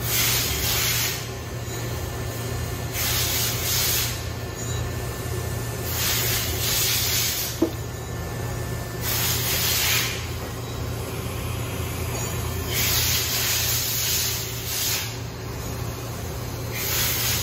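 Steady low background hum with bursts of hiss about a second long every few seconds. About eight seconds in, a chrome handlebar riser is set down on a concrete ledge with one sharp knock.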